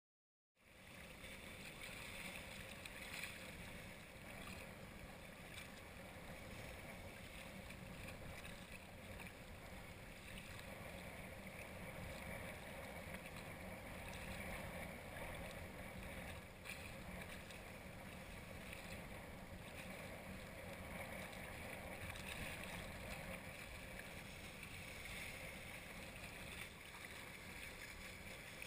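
Steady wash of wind and small waves lapping close to a camera at the water's surface, starting about half a second in.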